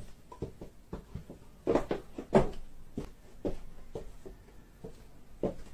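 High-heeled shoes knocking on a wooden floor in a small room: irregular steps, loudest about two seconds in.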